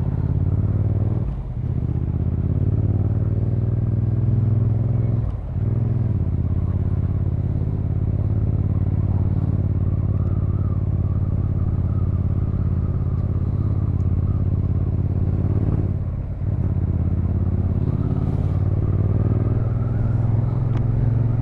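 Motorcycle engine running under way, heard from the rider's camera. The engine note drops briefly about a second and a half in, again near five and a half seconds, and again around sixteen seconds, as on gear changes or easing off the throttle, then picks up again.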